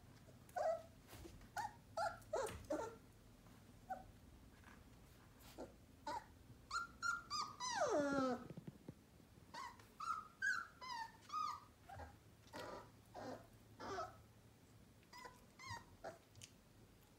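One-month-old sheepadoodle puppies playing, giving many short yips and whimpers. About eight seconds in, one puppy lets out a longer howl that falls steadily in pitch.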